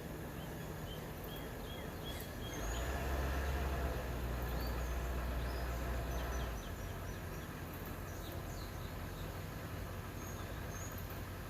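Small songbirds chirping, with a quick run of repeated notes near the start and scattered high chirps later, over a steady low background hum. A louder low rumble comes in about two and a half seconds in and drops away about four seconds later.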